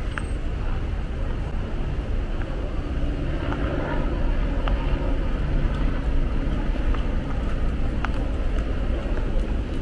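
City street traffic: a steady low rumble of passing vehicles, with a few faint clicks.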